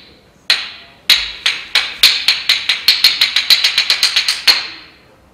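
Hyoshigi, a pair of Japanese wooden clappers, struck together: a few slow, sharp clacks that speed up into a rapid run, ending in one final clack. This is the traditional signal that a show is about to begin.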